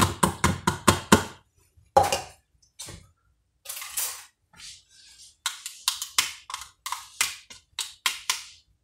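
Metal spoon tapping against a plastic funnel to knock grated horseradish down into a bottle: a quick run of sharp taps, a knock and some rustling, then another run of taps.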